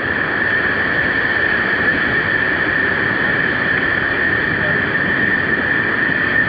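Steady wind buffeting the microphone over breaking surf, with a thin steady high tone running through it.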